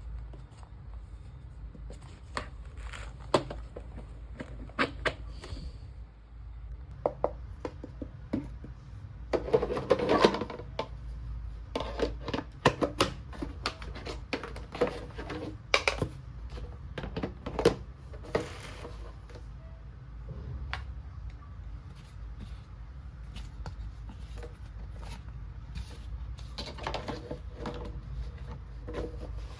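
Small plastic toy kitchen pieces handled and set down: irregular clicks, taps and light rattles, busiest about ten seconds in and again near the end, over a steady low hum.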